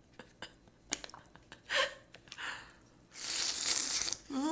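Close-miked eating sounds of cup ramyun: small mouth clicks and brief chewing noises, then a long slurp of noodles lasting about a second, from about three seconds in. A short voiced hum begins just before the end.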